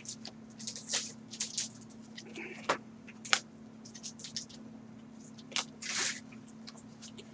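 Baseball trading cards handled by gloved hands: short scrapes and slides of card against card, with a few sharp clicks, over a faint steady hum.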